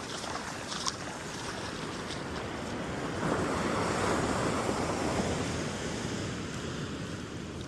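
Ocean surf on an incoming tide: waves washing up the beach, with one breaker swelling about three seconds in and then easing off.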